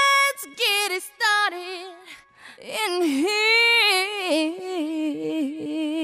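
A solo female voice singing unaccompanied, holding long wavering notes with vibrato, with a brief pause about two seconds in.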